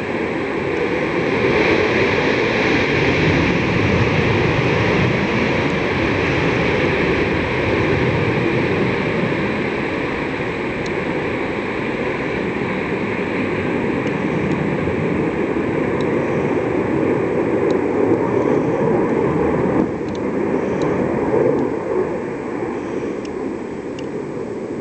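F/A-18 Hornet's twin jet engines at takeoff power, a loud steady jet rush as the fighter rolls down the runway and climbs away, easing off a little near the end.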